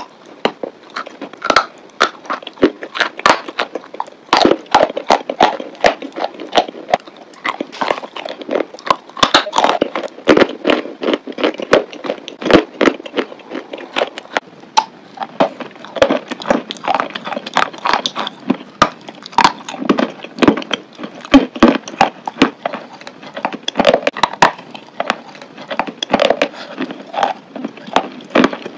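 Close-up chewing of chalk coated in a wet paste: a dense, irregular run of sharp crunches and crackles, several a second, with wet mouth smacking between them.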